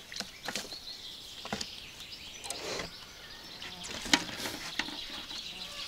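Scattered knocks and rustles of a freshly landed crucian carp being handled, the loudest knock about four seconds in, over birds chirping.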